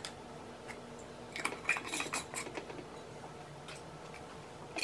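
Light clicks and clinks of a metal canning lid being set onto a glass mason jar and of items handled on a glass stovetop, most of them bunched about one and a half to two and a half seconds in.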